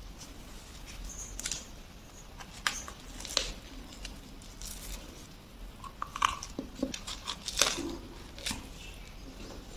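A person biting into and chewing a soft white-bread sandwich with tomato: scattered crackly bites and chewing sounds.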